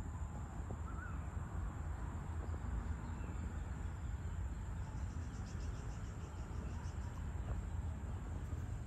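Evening outdoor ambience: a steady low rumble underneath, faint short bird chirps about a second in, and a rapid high ticking trill for a couple of seconds just past the middle.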